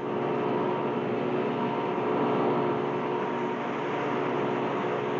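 Motorboat engine running steadily with an unchanging pitch as it tows a water-skier.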